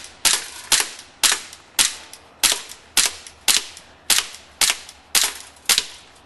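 Sig P226 airsoft pistol firing eleven quick shots, about two a second, each a sharp pop with a short ringing tail.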